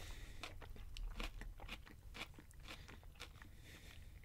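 Close-miked mouth chewing a forkful of Chipotle beef power bowl (lettuce, beef and guacamole), many small irregular crunches and clicks.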